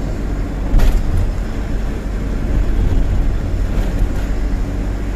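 Tata 1512 truck heard from inside its cab while driving: a steady diesel engine drone with road rumble, and one short sharp knock a little under a second in.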